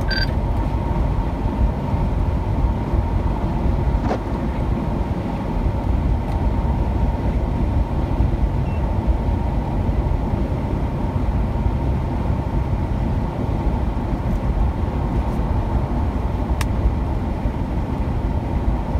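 Steady road and tyre noise inside a car cabin at highway speed on wet pavement: an even low rumble with a faint steady hum above it.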